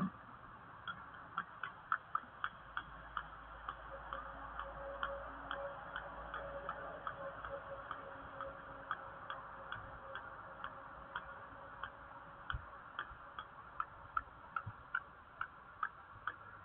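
A short soft thump as a kestrel lands on the nest-box perch, then a run of sharp, irregular ticks, about two to three a second, over a faint steady hiss.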